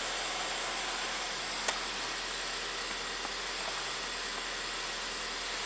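1.6-litre EcoBoost four-cylinder of a 2014 Ford Transit Connect idling, a steady even hum with no audible rise and fall, and one faint click about a second and a half in.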